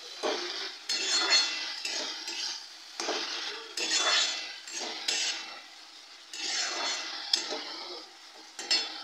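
Metal spatula scraping and stirring mustard greens around a metal karahi, one stroke about every second, with sharp clinks of metal on metal among the strokes.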